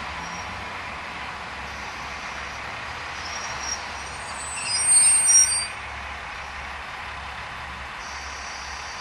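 Diesel railcar running, a steady rushing noise, with a brief high-pitched squeal about five seconds in.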